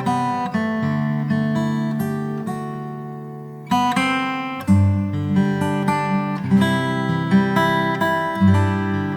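Background music played on acoustic guitar: strummed and plucked chords in a steady rhythm, one chord left to ring and fade for about a second before playing picks up again.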